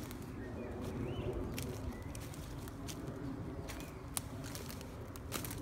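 Footsteps over the litter of a forest floor, with a few sharp snaps of dry twigs, and a faint bird call early on.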